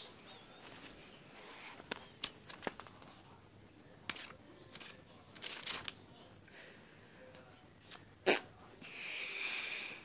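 Handling noise from a notebook with a red cover being opened and moved about: scattered light clicks and rustles, a sharp snap about eight seconds in, then a rustling hiss lasting about a second near the end.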